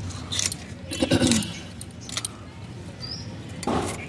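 Bangles clinking on the wrists and Malabar spinach stems snapping and rustling as leaves are picked off by hand, in a few short bursts, the loudest about a second in and another near the end.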